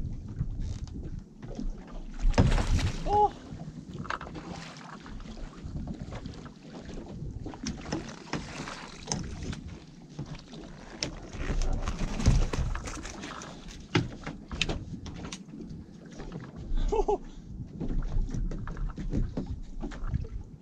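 Wind buffeting the microphone on a small fishing boat, with irregular knocks and clatter of gear on deck as a dhufish is landed. Two brief pitched squeaks come about three seconds in and again near the end.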